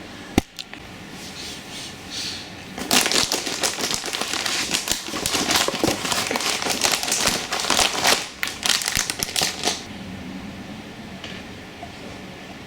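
A single sharp click, then about seven seconds of rapid clicking and crinkling rustle from hands handling something, stopping about ten seconds in.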